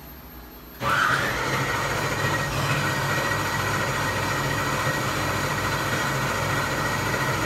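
Starter cranking a 408 cubic-inch LS stroker V8 on an engine dyno, beginning about a second in and running steadily with a high whine for about seven seconds without the engine catching. The builder puts this down to a startup tune that is different with this intake.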